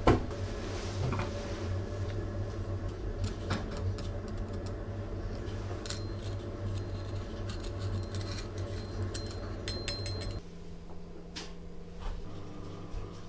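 A low steady hum with a few light clicks and knocks as metal pieces, a hammer head and a steel screw, are handled on a wooden workbench; the hum drops away about ten seconds in.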